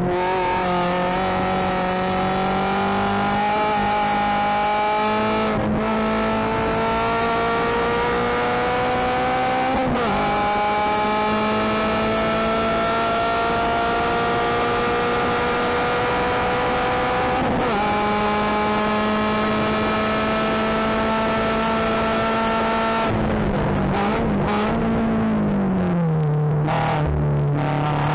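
Subaru BRZ's flat-four boxer engine heard from inside the race car's cabin, pulling hard at full throttle with its pitch climbing, shifting up from third to fourth about ten seconds in. Near the end the engine note breaks off as the driver lifts and brakes, and it comes back lower after a downshift to third.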